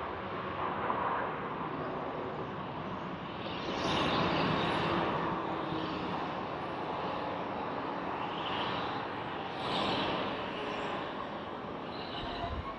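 Distant jet noise of a landing Boeing 747 freighter's four engines: a steady roar that swells about four seconds in and again about ten seconds in.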